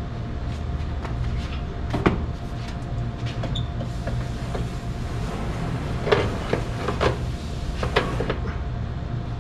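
Sheet-metal front panel of an LG 36,000 BTU air conditioner's outdoor unit knocking and scraping against the casing as it is fitted back into place, with a few clanks about two seconds in and several more between six and eight seconds in. A steady low hum runs underneath.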